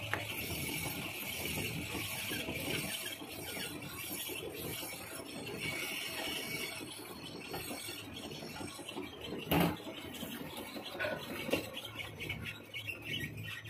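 Hand file rasping against a bevel pinion blank spinning in a lathe chuck, over the steady running of the lathe. A single sharp knock comes about two-thirds of the way through.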